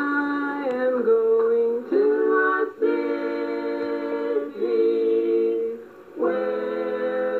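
Three siblings singing together in harmony, holding long notes, with a few short breaks between phrases, on a cassette recording copied several times.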